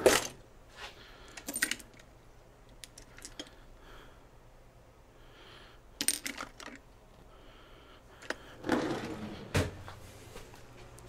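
Metal hand tools clinking, sockets and a ratchet handled and set down, in a few separate short bursts: a sharp clink at the start, more around six seconds in, and a longer rattle followed by a sharp clink near the end.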